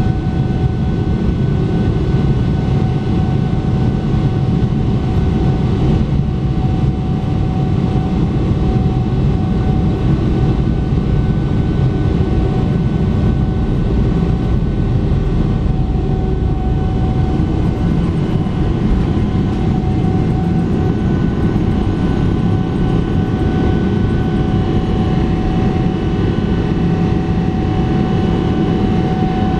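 Boeing 777-300ER's GE90-115B turbofan engines at takeoff thrust, heard from inside the cabin during the takeoff roll and liftoff: a loud, steady noise with a steady high whine over it.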